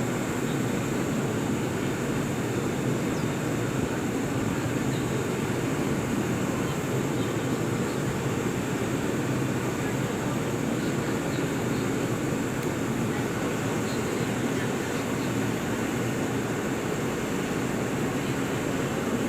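Steady low rumble with a steady high hiss from a JR East 185 series electric train, holding an even level throughout.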